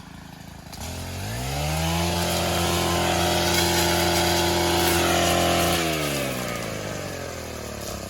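Gas string trimmer (weed whacker) engine revving up from idle about a second in, held at full throttle for a few seconds, then dropping back toward idle.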